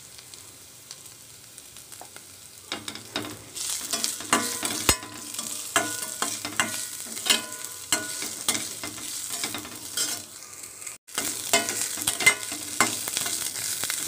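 Perforated stainless-steel skimmer scraping and clinking against a stainless-steel kadai as shredded cabbage is stir-fried in hot oil, with a sizzle under it. The stirring starts a few seconds in after a quieter stretch, and several of the metal strokes ring briefly.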